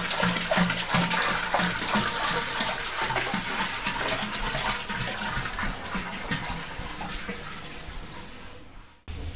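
Water poured from a plastic can into a plastic barrel, a steady rushing pour as the barrel fills; it cuts off suddenly near the end.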